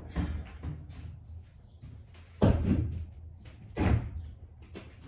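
Hard knocks and thuds from tools working on the truck's body, with lighter taps between; the loudest come about two and a half and four seconds in.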